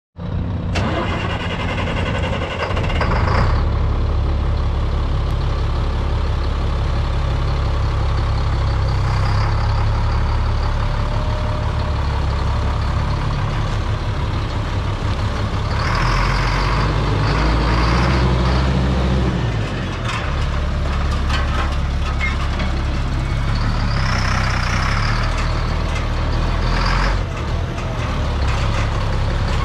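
1999 GMC C6500 medium-duty truck's engine idling with a steady low hum, with a few short bursts of hissing over it.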